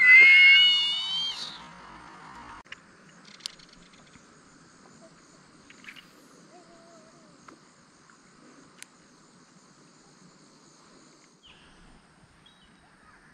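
A loud, high-pitched squeal, rising slightly in pitch, for about the first second and a half. It is followed by a faint, steady high drone of insects, with a few scattered faint clicks.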